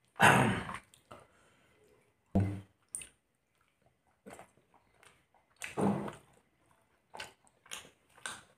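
Wet chewing and lip-smacking sounds of a man eating by hand: a handful of short separate mouth noises with quiet gaps between them, the loudest right at the start.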